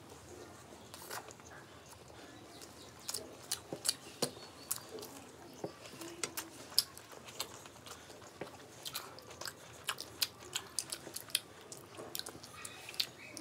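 Two people eating fried rice and chilli chicken with their hands: chewing with many short, sharp, irregular mouth clicks, coming thicker from about three seconds in.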